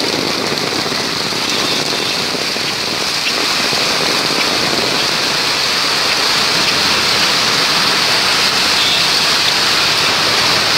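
Loud, steady rush of fast-flowing floodwater running along a flooded street in heavy rain.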